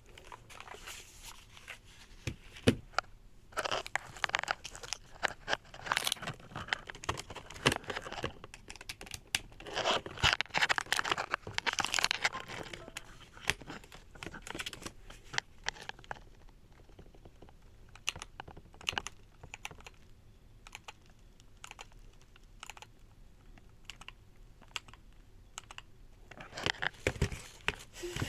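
Unboxing handling: packaging crinkling and tearing with scattered clicks and knocks as the keyboard and its accessories are moved about. The activity is busiest in the first half, thins to occasional clicks, and picks up again near the end.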